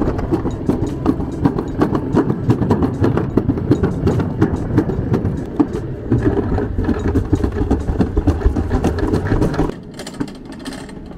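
Summer toboggan sled running down a stainless-steel trough track: a continuous rumble with dense rattling and clacking as the sled rolls through the metal channel. Near the end it drops suddenly to a quieter rattle as the sled slows at the bottom of the run.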